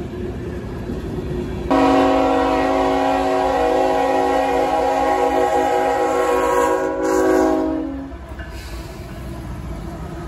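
Diesel freight locomotive's air horn blowing one long blast of about six seconds, cutting in suddenly about two seconds in. Before and after the horn, the steady rumble of a passing train.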